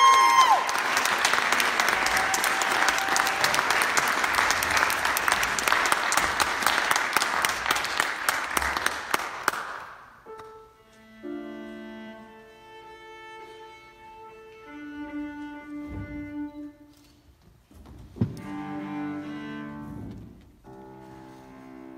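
Audience applauding for about ten seconds as the last held note of a piece dies away; the clapping fades out. Then a bowed string instrument, most like a cello, plays a few quiet, separate held notes.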